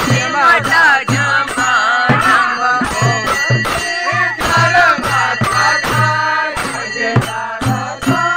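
Background music: a folk song, with singing over a steady drum beat.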